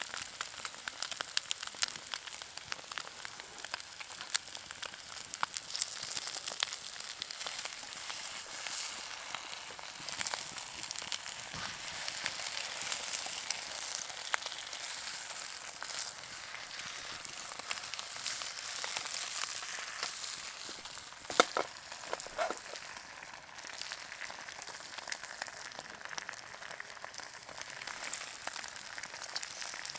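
French toast frying in a non-stick frying pan over a wood-burning camp stove: a steady sizzle with many small crackles, and one louder click about two-thirds of the way through.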